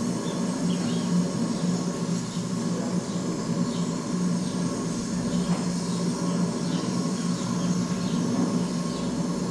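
About 27 litres of beer wort at a rolling boil in a large stainless-steel kettle over a gas fire: a steady low rumble of burner and boil, with bubbling above it.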